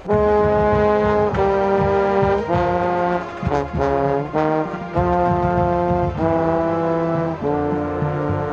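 Marching band brass playing a slow series of loud held chords, the bass trombone right at the microphone. The band comes in suddenly at the start, and the chord changes about every second or so.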